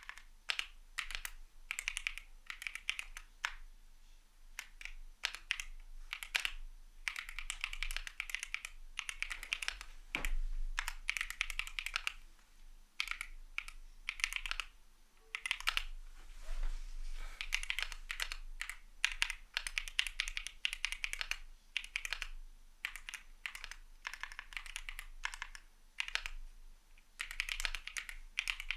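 Typing on a CIDOO V75 mechanical keyboard with Matte switches: quick runs of keystrokes broken by short pauses.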